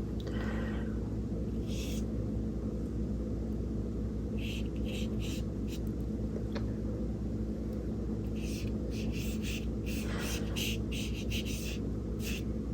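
A steady low hum runs throughout. Over it come short, scratchy strokes of a paintbrush on paper, in a small cluster midway and a quicker run through the last few seconds.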